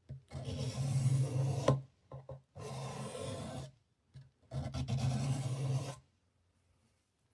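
Abrasive hand rubbing on a pocket knife: three slow scraping strokes of a second or more each, with a couple of short scrapes between them, stopping about six seconds in.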